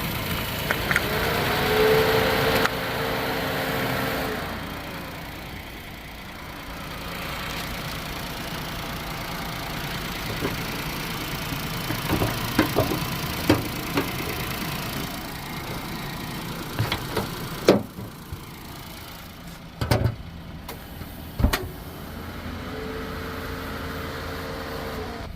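Small car's engine idling steadily after being jump-started from a flat battery. A brief whine comes in near the start and again near the end, and several sharp clicks and knocks come in the second half.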